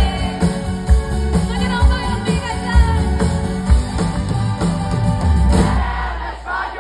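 Live pop-rock band playing with a female lead singer: drums and bass keep a steady beat under the wavering sung melody. About five and a half seconds in, the drum beat drops away for a moment while the singing carries on.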